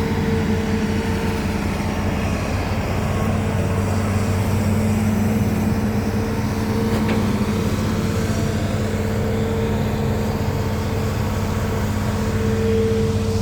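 Hitachi Zaxis 210F excavator's diesel engine running at a steady pitch.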